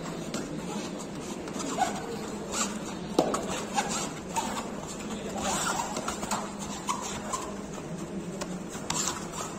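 Sports shoes squeaking in short chirps and scuffing on a kabaddi court mat as players shuffle and step, with a few sharp foot slaps, the loudest about three seconds in, over a low murmur of voices in the hall.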